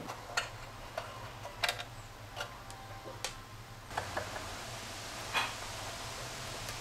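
Scattered light clicks and taps, irregular and a second or so apart, from handling the metal-cased clock and working a screwdriver at the screws of its aluminium bottom plate, over a low steady hum.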